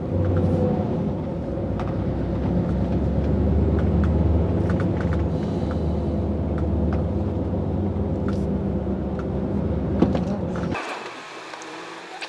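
HGV's diesel engine running, heard from inside the cab as a steady low drone, which falls away abruptly about eleven seconds in.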